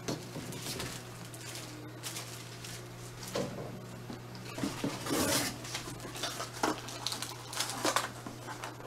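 Cardboard packaging being handled: scattered rustles, scrapes and light knocks as a printer is lifted from its box and a cardboard packing insert is pulled off it, over a steady low hum.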